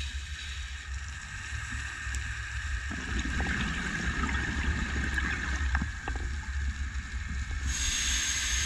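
Muffled underwater sound through a diving camera's housing: a steady low rumble, with a stretch of scuba exhaust bubbling and a few small clicks from about three to six seconds in.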